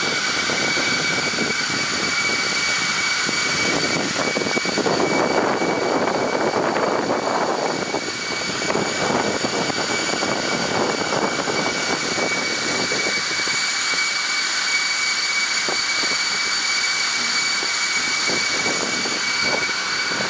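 Jet aircraft engines running, a steady noise with a constant high whine.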